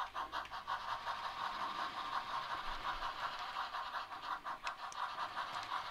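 Bachmann HO scale model steam locomotives running around the track: a steady hum from the running trains with a quick, even ticking over it.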